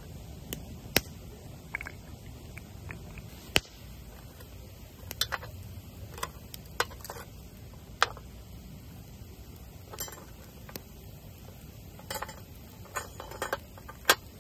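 Irregular clinks and knocks of camp cookware and utensils being handled: about fifteen sharp sounds spread unevenly, some ringing briefly, over a steady low background rush.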